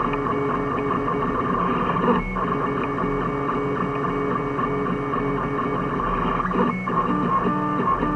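3D printer stepper motors whining in steady tones that shift pitch in steps as the print head moves, with brief breaks about two seconds in and near seven seconds.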